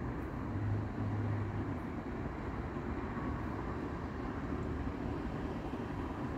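Steady low rumble of distant traffic, with a low hum rising briefly about a second in.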